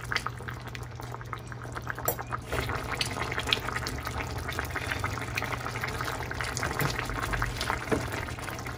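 Chayote and pork broth simmering in a stainless frying pan, a steady bubbling crackle, with a few sharper clicks of a fork and spoon stirring against the pan. A low steady hum runs underneath.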